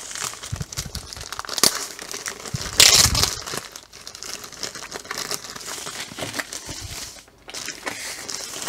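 Clear plastic wrapping crinkling and crackling as a rolled canvas is pulled out of it by hand, with a sharp crack a little under two seconds in and the loudest crackle at about three seconds.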